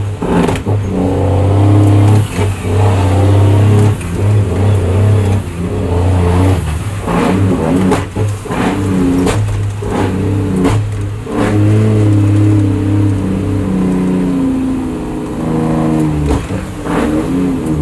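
Cummins M11 Select Plus diesel in a Freightliner FLD, heard from inside the cab, pulling hard through the gears of its 18-speed transmission. The engine note drops out and picks up again about ten times as the gears are shifted, with short clunks at the shifts.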